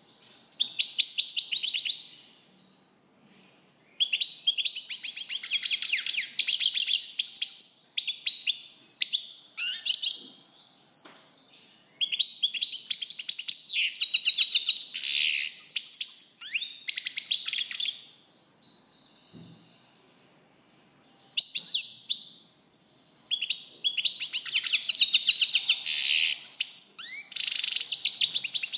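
European goldfinch singing: long phrases of rapid twittering and trills, broken by short pauses, about five phrases in all.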